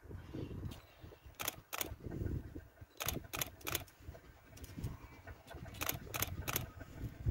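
Wind gusting on the microphone, with sharp clicks in short runs of two or three.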